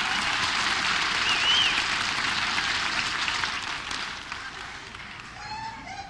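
Studio audience applauding, with a brief rising-and-falling whistle about a second and a half in; the applause dies away over the last couple of seconds.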